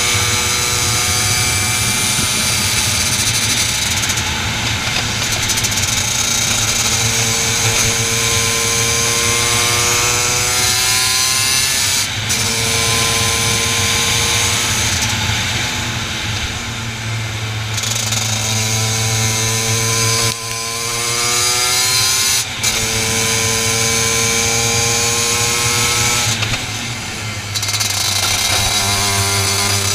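Racing kart engine heard on board at full throttle, its pitch climbing steadily as the kart accelerates and dropping suddenly each time the driver lifts off for a corner, several times over, with a steady hiss on top.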